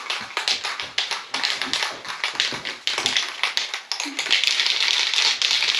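Shop towel wiping a tinted plastic boat windshield: quick irregular scuffs and taps, then a denser, steadier rubbing from about four seconds in.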